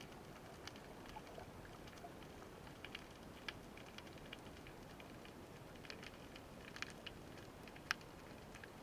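Underwater ambience: a faint steady hiss with scattered sharp clicks and crackles, the loudest click near the end.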